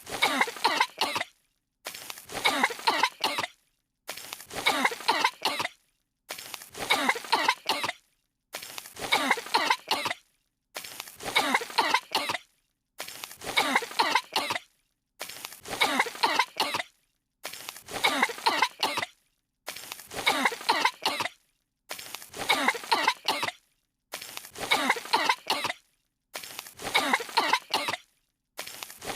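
Two cartoon characters coughing from the dust that has fallen on them, a coughing fit of about two seconds looped over and over with a brief dead silence between repeats.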